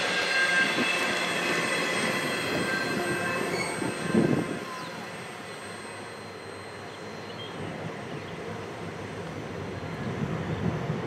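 Intermodal freight cars rolling past on steel wheels, with high steady wheel squeal and a brief louder surge about four seconds in. The rumble then grows fainter as the end of the train moves away.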